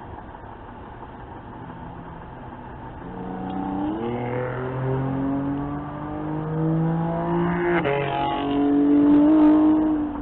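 Car engine revving up under acceleration, its pitch climbing steadily, dropping once about eight seconds in at a gear change, then climbing again before easing off near the end.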